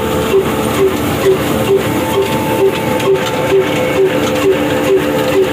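Big old 45 HP diesel oil engine running slowly and driving a belt-and-pulley line shaft, with a steady beat of a little over two a second.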